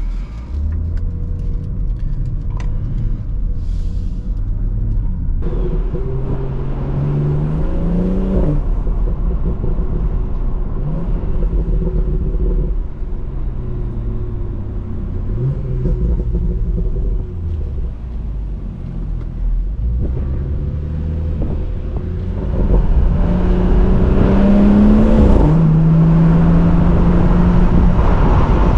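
BMW 340i's turbocharged straight-six engine and road noise as the car is driven. The engine pitch rises under acceleration and drops at each gear change, three times, and it gets louder about two-thirds of the way through.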